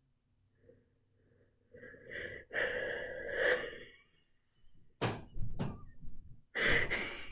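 A woman laughing, starting about two seconds in, first in a long breathy laugh, then in short gasping bursts.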